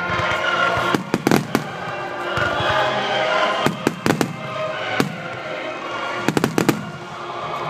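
Aerial fireworks shells bursting in quick clusters of sharp bangs, over music playing throughout.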